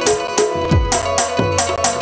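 Live Indian folk music without singing: a tabla plays a steady rhythm, its bass drum strokes sliding down in pitch roughly every half second, over held harmonium notes.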